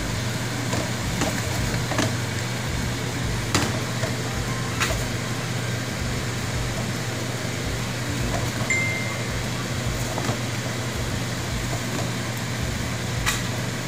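Bitter gourd and sauce sizzling in a wok, a steady hiss over a low hum, with a few sharp knocks of a wooden spatula against the pan as it is stirred. A short high beep sounds about nine seconds in.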